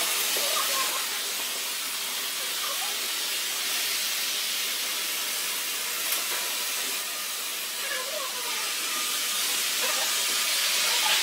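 A steady hiss with faint voices talking in the background.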